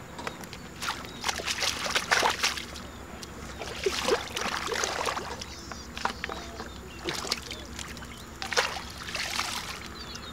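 Muddy water sloshing and splashing as a plastic basket full of mud is swished and rinsed in shallow water, in about four bursts a couple of seconds apart.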